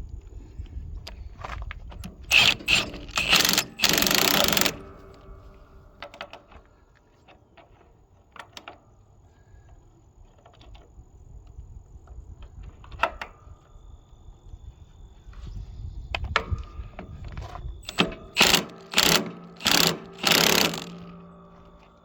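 Metal being struck hard, several blows in a row about two seconds in and again as a quick run of four or five near the end, each blow leaving a metallic ring. Quieter knocks and handling come in between.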